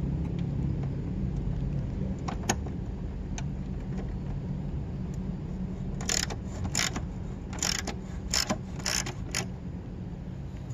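Socket ratchet clicking in about six short bursts a little over half a second apart, one per back-swing, as a bolt on the mower deck's belt guard is worked loose. A couple of faint clicks come before, and a steady low hum runs underneath.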